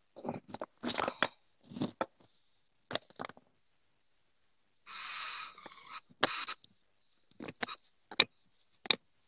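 Vaping on a rebuildable dripping atomiser: one steady breathy hiss of air through the device about five seconds in, with short crackles before it and several sharp clicks or pops near the end.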